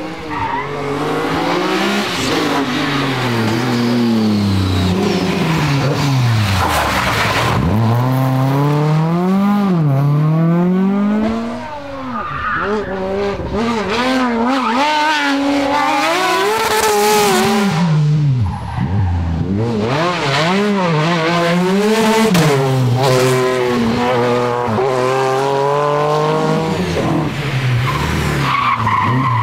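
Rally car engine revving hard, its pitch climbing and dropping again and again through gear changes and lifts off the throttle. The sound dips briefly twice along the way.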